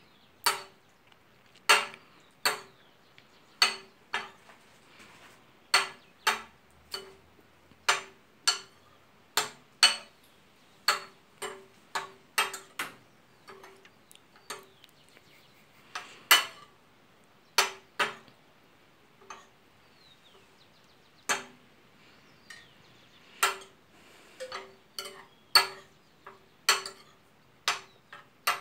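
Metal spoon clinking against a ceramic bowl while stirring ceviche: irregular sharp clinks, one or two a second, each with a brief ring from the bowl.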